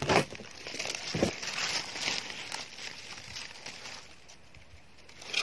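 Dry forest leaf litter and twigs rustling and crackling under hands, with a couple of knocks in the first second or so.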